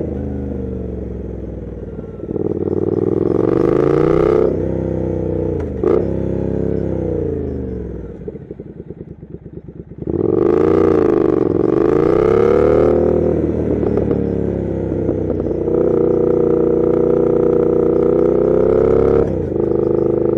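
Triumph Thruxton RS 1200 cc parallel-twin through a Weslake aftermarket exhaust, heard from the rider's seat: the revs climb and fall through several gear changes, with one sharp crack about six seconds in. About halfway it drops to low, uneven revs, then pulls hard again and holds a steady cruise before rolling off the throttle near the end.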